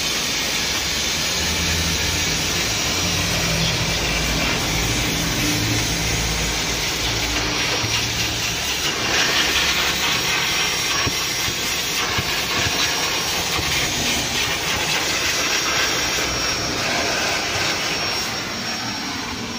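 Canister shop vacuum running steadily, its hose nozzle sucking at car floor carpet, a rushing-air sound with a thin high whine over it in the second half.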